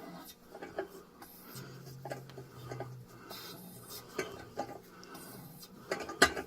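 Irregular light metal clicks and scrapes of a hand tap being worked in a threaded hole in a cast engine block, with a louder clatter of clicks about six seconds in.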